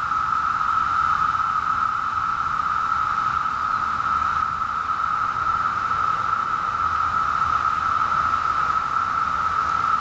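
A chorus of periodical cicadas singing, one steady, unbroken hum with no rise or fall.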